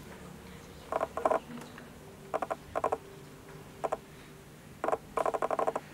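Damp makeup sponge dabbing and rubbing water-based face paint onto skin, heard as short bursts of rapid creaky clicking, in about four groups.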